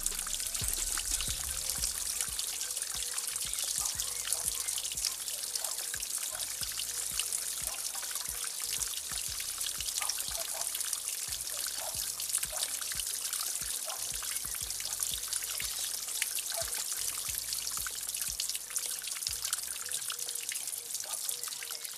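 Water from a small garden waterfall trickling and splashing steadily into a pond.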